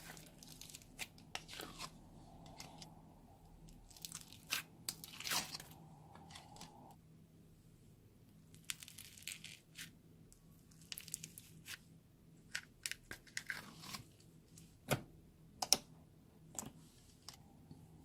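Hands mixing and squishing slime, with irregular crunches, crackles and small pops; two sharper pops come about fifteen seconds in.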